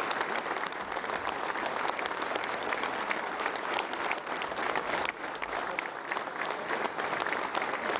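Large indoor audience applauding steadily, many hands clapping at once.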